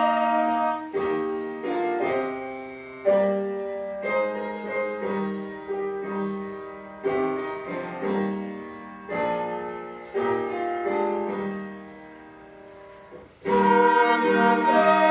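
Small instrumental ensemble playing a slow hymn-like piece. About a second in, the held ensemble tones stop and a piano carries on alone with separately struck chords that die away, growing soft before the full ensemble comes back in loudly near the end.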